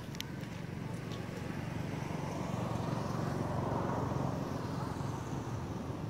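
A motor vehicle passing by: a steady low engine hum swells to its loudest around the middle and fades toward the end. A few sharp clicks come in the first second.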